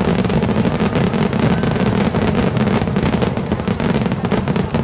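Large aerial fireworks barrage (a Japanese star mine): a dense run of booms and crackling over a continuous rumble, thinning a little near the end as the last stars burn out.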